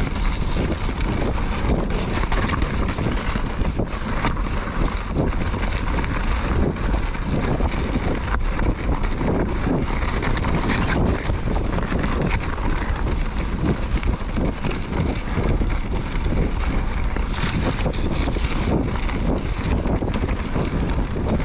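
Mountain bike descending a rough gravel and rock trail: tyres rolling over stones and the bike rattling with many small knocks, under steady wind noise on the camera's microphone.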